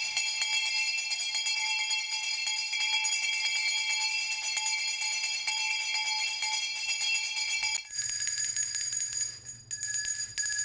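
Brass hand bell rung rapidly and without pause, the clapper striking many times a second so its tones ring on steadily. About eight seconds in it gives way to a smaller, higher-pitched brass hand bell shaken the same way.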